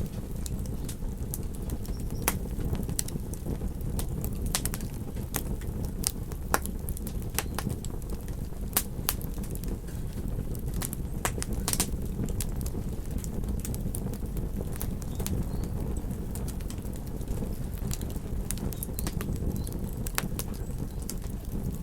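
Wood campfire crackling, with irregular sharp pops and snaps several times a second over a steady low rush.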